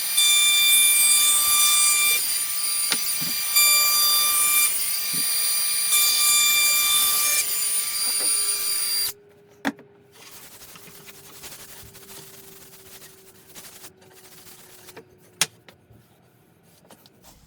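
Router with a small round-over bit running at a high whine, trimming the excess iron-on edging strip off an MDF edge. Its loudness rises and falls in stretches as it cuts. It stops about nine seconds in, followed by a few light knocks.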